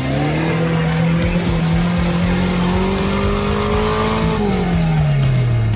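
Compact 4x4 off-road vehicle's engine revving hard as it drives through a muddy trench: revs climb at the start, hold high and rise a little for about four seconds, then drop off about four and a half seconds in.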